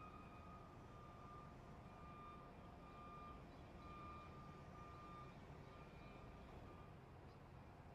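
Near silence: a faint low outdoor rumble with a faint high tone that comes and goes in short stretches.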